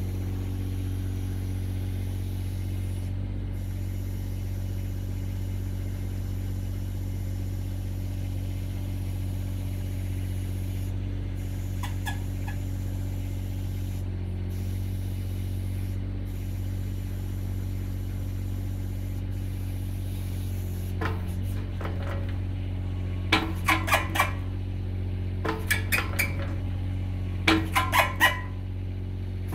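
Excavator engine running steadily. In the last third, a Powertilt tilting attachment jerks through its tilt in three bursts of rapid sharp knocks: the Powertilt is juddering instead of turning smoothly.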